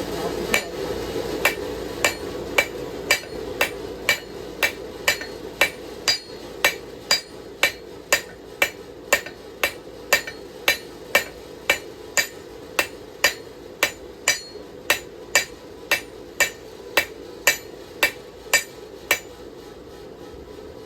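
Hand hammer striking the edge bevel of a hot steel knife blade on an anvil: a long run of even blows, a little under two a second, that stops near the end.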